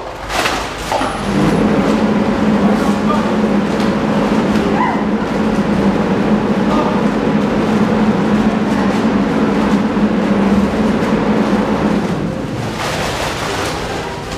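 A steady low mechanical hum that starts about a second in and eases off about twelve seconds in, with rustling and small clicks over it.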